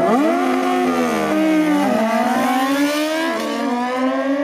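Kawasaki Z1 drag bike's 1197cc air-cooled inline-four launching off the line and accelerating hard. Its pitch climbs, drops back at upshifts about two seconds and three and a half seconds in, and climbs again.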